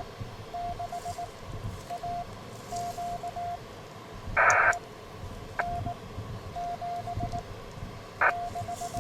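Morse code (CW) tone from the ham radio, a single steady pitch keyed on and off in dots and dashes. A short loud burst of noise about halfway through and a couple of sharp clicks break in.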